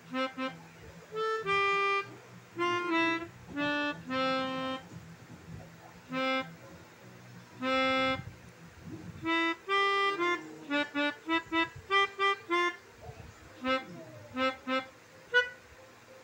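Basuri telolet horn, the multi-note air horn of Indonesian buses, played as a tune: a string of toots at changing pitches, some held about half a second, with a quick run of short toots two-thirds of the way through.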